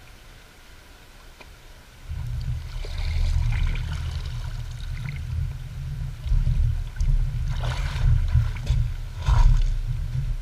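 A person in waders getting up and wading through shallow river water, the water splashing and sloshing around the legs in a few bursts. A loud low rumble on the microphone starts about two seconds in.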